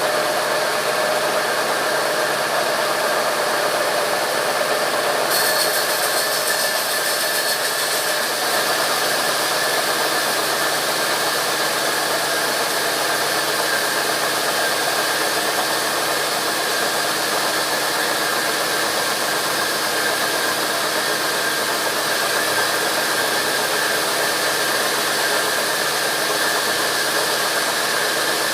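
Sawmill machinery running steadily: a continuous mechanical noise with a steady high whine, unchanging throughout.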